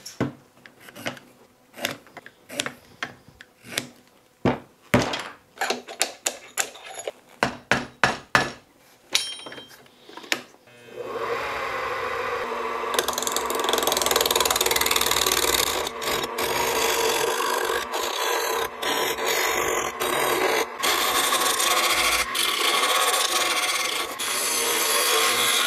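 For about the first ten seconds, scattered sharp knocks and clicks as a small cypress log is fitted between the centres of a small wood lathe. Then, about eleven seconds in, a steady scraping, shaving noise: a gouge cutting the spinning cypress log, rough-turning it round.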